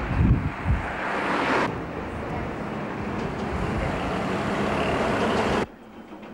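Road traffic noise with a vehicle going by, and wind buffeting the microphone in the first second. The sound changes abruptly about a second and a half in and drops sharply near the end.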